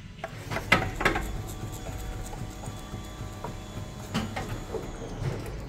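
Several dull knocks and clunks scattered over a steady workshop background, from the rear suspension of a Mercedes W203 being shaken by hand to check for play. The stabilizer bar links turn out to be tight.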